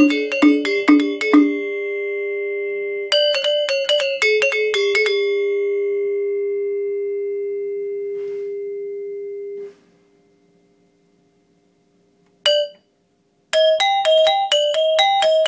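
Balinese gangsa (bronze-keyed gong kebyar metallophone) played with a hammer mallet, playing the polos part of a kebyar introduction. Quick runs of struck bronze keys give way to one note left ringing for several seconds until it is damped. After a short pause and a single clipped note, fast notes start again near the end.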